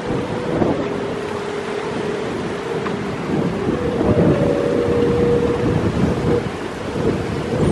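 Strong gusty coastal wind buffeting the microphone in a continuous rumbling rush, rising and falling with the gusts. A thin steady tone sounds underneath.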